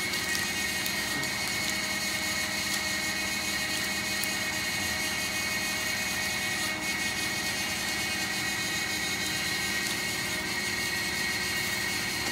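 Steady hum of running factory machinery, with a constant high whine over it.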